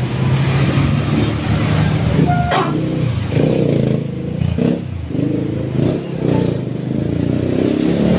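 Road traffic passing: a steady engine drone, with a brief higher tone about two and a half seconds in, then uneven engine and traffic sound.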